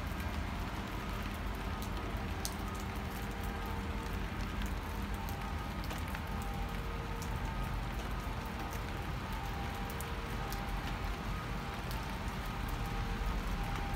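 Steady rain falling, with scattered drops ticking on nearby surfaces and a faint steady low hum beneath it.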